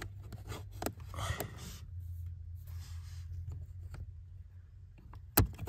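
Fingers working a plastic retaining clip and cable: scattered small clicks and short scraping rubs, with a few sharper clicks near the end, over a steady low hum.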